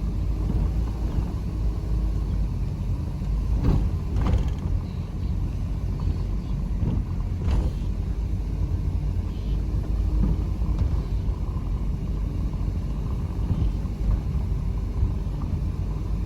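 Car driving along: steady low road and engine rumble, with a few brief knocks around four and seven seconds in.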